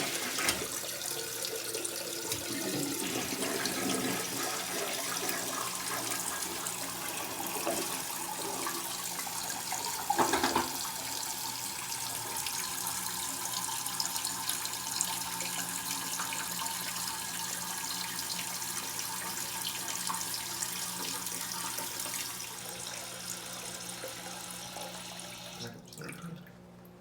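Toilet tank refilling after a flush: a steady hiss of water through the fill valve, with a brief gurgle about ten seconds in, easing off and shutting off about a second before the end. The refill stopping on its own shows the flapper now seals after its chain was adjusted, so the toilet no longer runs continuously.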